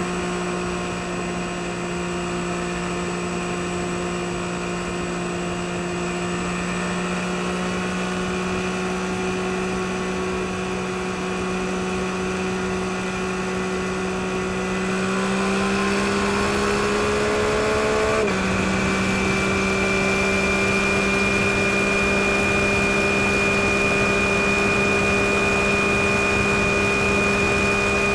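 2022 Yamaha MT-09 SP's 890 cc inline-three engine pulling at a steady pitch on the move. Its pitch climbs slowly, then drops suddenly about eighteen seconds in as it shifts up a gear, and it holds steady again, a little louder.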